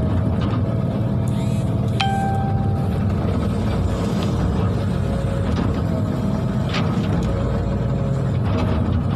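Hitachi excavator's diesel engine running steadily under load, heard from inside the cab, as the bucket is dragged through the water to pull the machine along, with churning water and a few light knocks. A short pitched tone sounds about two seconds in.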